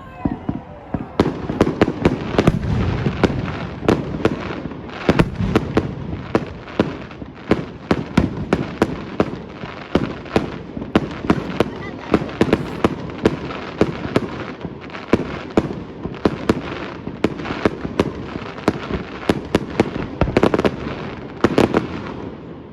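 Fireworks display: a continuous barrage of sharp bangs and crackles, several a second, over a low rolling rumble.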